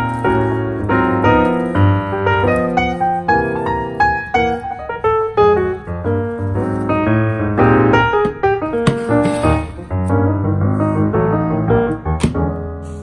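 Background piano music, many quick notes in a lively run.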